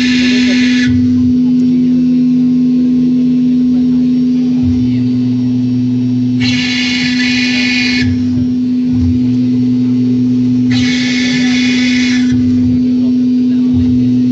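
Shusa Fortuna Eng-Pro DB-2500K CNC engraving machine cutting stone: a steady spindle whine under lower motor tones that shift pitch every few seconds as the head moves. A harsh, high rasp comes in three times, each for about a second and a half.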